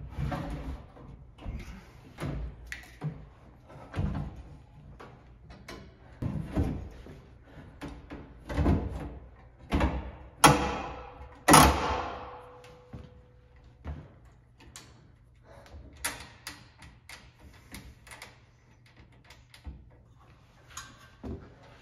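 Sheet-metal knocks, clunks and scraping from a furnace blower housing being slid into its cabinet and seated on its mounting lip. About ten and eleven seconds in come two loud metal bangs, the second ringing on briefly.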